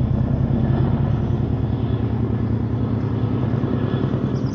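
Helicopter flying overhead, its rotor beating in a rapid, steady low pulse over the engine's drone.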